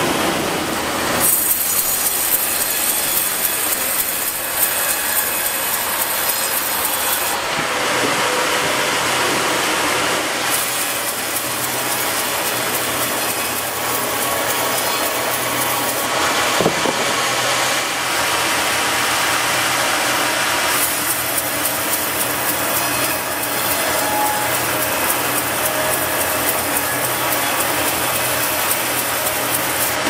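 Large sawmill band saw running and cutting through a log, a loud steady hiss of the blade in the wood over the hum of the machinery. The hiss comes and goes in stretches of several seconds as the cut goes on and pauses.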